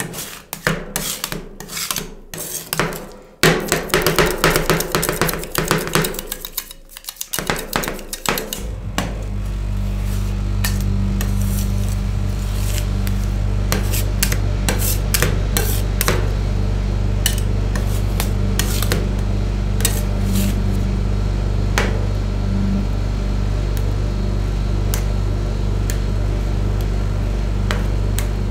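Metal spatulas chopping and scraping ice cream on a stainless steel cold plate: rapid sharp taps at first, then scraping and spreading strokes. About nine seconds in, a steady low hum from the cold plate's refrigeration unit starts and runs on underneath.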